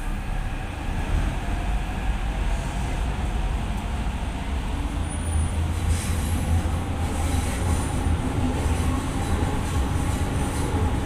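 Hyderabad Metro electric train running on its elevated track, heard from inside the carriage as it pulls away from a station: a steady low rumble.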